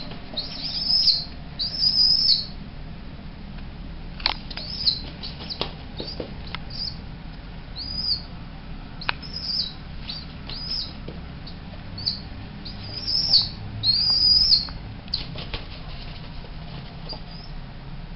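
Young pigeon squeakers peeping: bouts of short, high-pitched squeaks repeated on and off, with a few sharp clicks among them.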